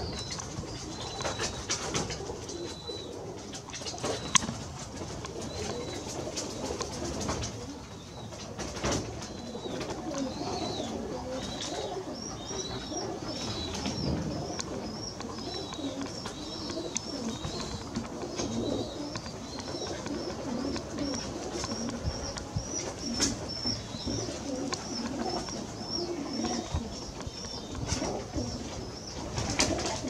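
Domestic pigeons cooing, with a short high chirp repeating about twice a second from about twelve seconds in and a few sharp clicks.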